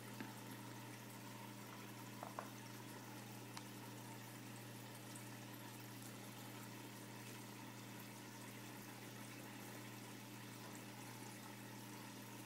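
Turtle tank's filter running: a steady low hum with faint trickling water, and a few light clicks in the first four seconds.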